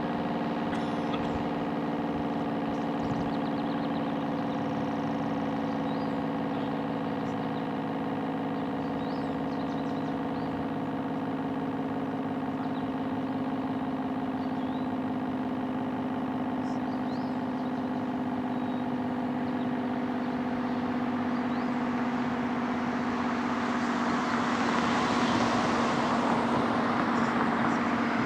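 ACA Screamer S-10 outdoor warning siren sounding a steady, unwavering tone. A rushing noise of passing traffic builds up over it in the last few seconds.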